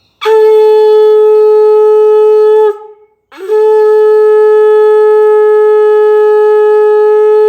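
Shankha (conch shell) blown in two long, loud, steady blasts at one pitch. The first lasts about two and a half seconds, and the second follows a short breath and is held for over four seconds.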